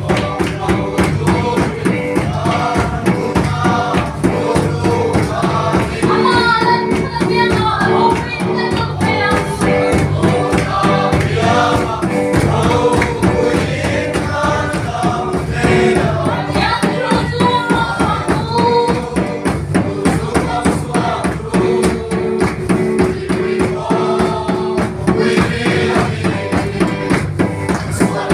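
A group of voices singing a Mizo gospel song together over instrumental accompaniment with a steady beat.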